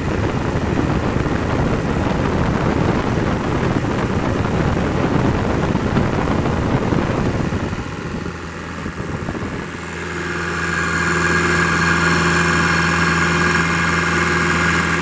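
Kubota V1505 four-cylinder diesel engine running steadily. The first half is a rough, noisy rumble; from about ten seconds in it settles into a steady hum with a high whine over it.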